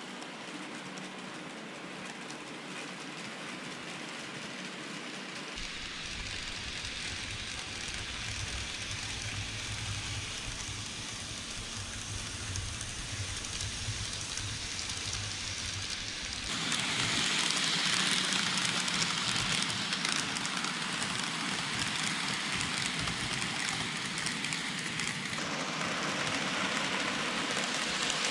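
N-gauge model trains, Micro Ace 811 series and KATO 885 series, running on the layout track: a steady hiss of small metal wheels rolling on the rails with a low rumble. It grows louder and brighter about halfway through as a train runs close by.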